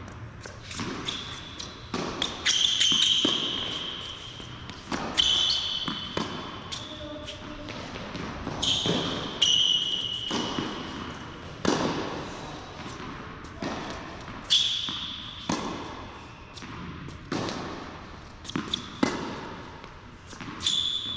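Tennis rally on an indoor hard court: sharp racket strikes and ball bounces at an irregular pace, with several short high squeaks of sneakers on the court surface as the players change direction.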